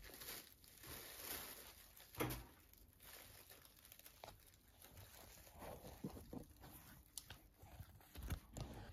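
Plastic carrier bag crinkling and rustling in faint, irregular spurts as a guinea pig rummages through the hay inside it, with a soft thump about two seconds in and another near the end.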